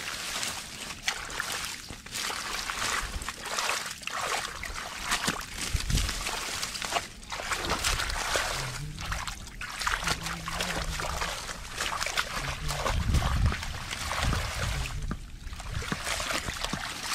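Shallow muddy water sloshing and trickling with many small irregular splashes as a person wades through it and pulls water hyacinth up from the mud by hand.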